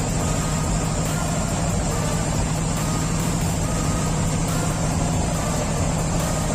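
Pilot boat's diesel engines running at a steady, even pitch, with a low drone and the hiss of water and air over it.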